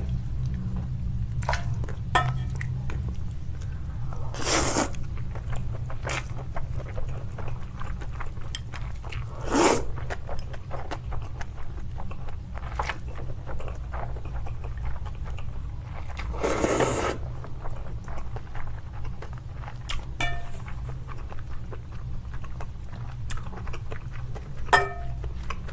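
Close-miked eating of cold spicy noodles: three long slurps about 4, 10 and 17 seconds in, with chewing and short chopstick clicks between.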